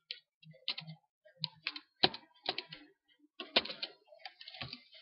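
Typing on a computer keyboard: irregular key clicks, several a second, with a few louder strokes between them.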